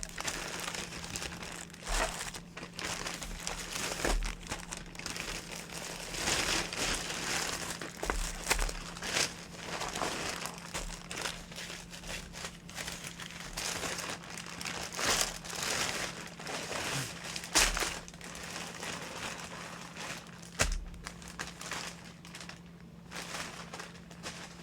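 Plastic packaging crinkling and rustling as items are pulled out of a bag, in irregular bursts with sharp crackles, over a faint steady hum.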